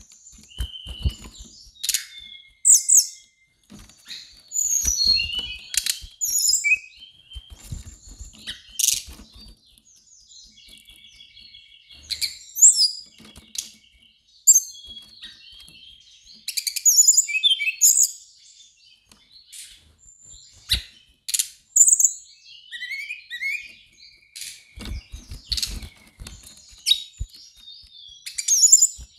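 Brown-chested jungle flycatcher singing in bursts of varied high chirps, whistles and quick trills, with short pauses between phrases. Occasional soft low thuds come in between.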